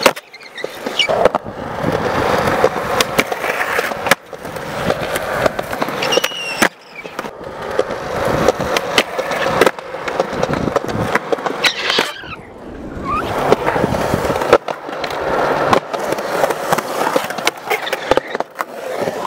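Skateboard wheels rolling on concrete, broken by sharp clacks of tail pops and board landings several times over, with a few short high squeaks.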